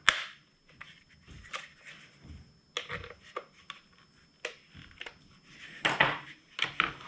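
Scattered light clicks and taps as hand tools and the small plastic and metal parts of a motorcycle cornering-light assembly are handled during disassembly, with a busier patch of clatter near the end.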